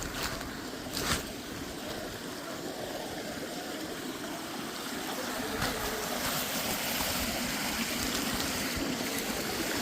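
Running water, a steady rush that grows a little louder about halfway through.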